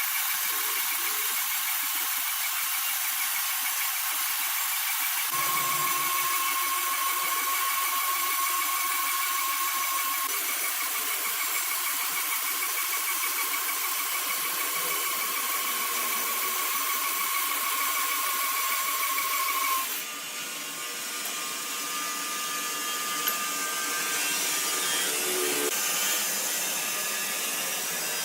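Sawmill saw machinery running with a steady high-pitched whine over a hiss. About twenty seconds in, the whine stops and the sound drops briefly, then the hiss returns.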